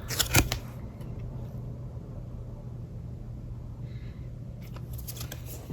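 Trading cards being handled: brief crisp rustles and clicks just after the start and again near the end, over a steady low hum.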